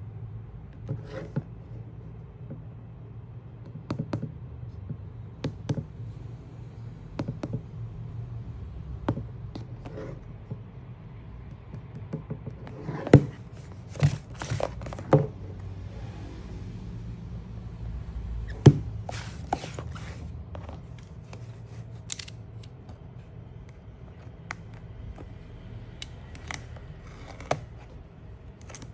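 A cardboard product box handled on a table: scattered taps, thumps and scrapes as it is turned over and set down, with a few louder knocks about halfway through, over a low steady hum. Near the end a utility knife begins slitting the packing tape.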